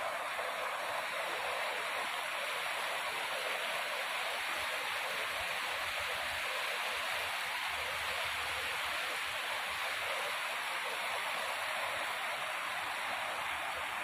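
A fast-flowing river rushing over stony shallows and small rapids: a steady, even rushing of water.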